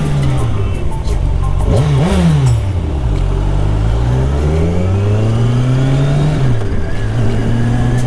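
Kawasaki Ninja 1000's inline-four engine under way, the revs rising and falling with the throttle: a brief rise and fall about two seconds in, then a long climb that drops off quickly near the end before settling to a steadier note.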